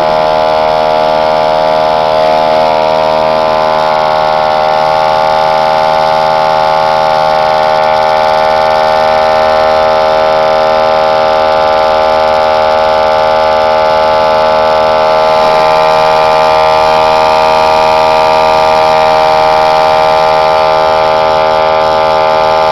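Small portable electric air compressor running steadily, pumping up the air chamber of a PVC pneumatic spud gun: a loud, even hum with many overtones. A higher whine joins about two-thirds of the way through.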